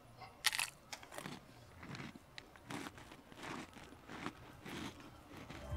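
Biting into an Oreo sandwich cookie with a crisp crunch about half a second in, then quietly chewing it with the mouth closed, roughly one chew every three quarters of a second.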